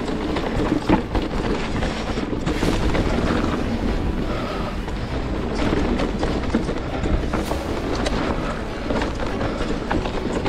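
Giant Reign E+ electric mountain bike ridden fast over a rough trail on Maxxis Assegai tyres: steady wind rumble on the microphone, with the tyres on dirt and frequent clatter and knocks from the bike over bumps.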